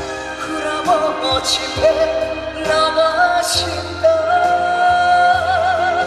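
Male trot vocalist singing live over a backing band through a PA, holding long notes with a wide vibrato, the longest from about four seconds in to the end.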